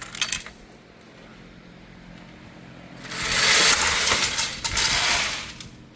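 ATLM ammo tray loading machine cycling 9mm 115-grain FMJ cartridges into trays. A faint hum for the first few seconds, then a loud, steady rush of machine noise from about three seconds in.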